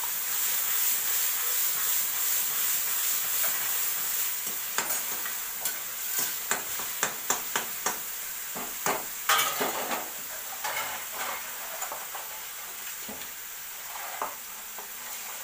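Onion, garlic, ginger and chilli paste sizzling in hot mustard oil in a kadhai while being stirred, the sizzle growing gradually quieter. A run of sharp clicks and knocks comes from about five to ten seconds in.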